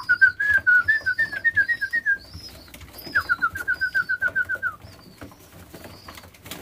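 Bird calling in two rapid trills of clear whistled notes, about seven or eight notes a second. The first trill lasts about two seconds and the second a second and a half, with faint high chirps above.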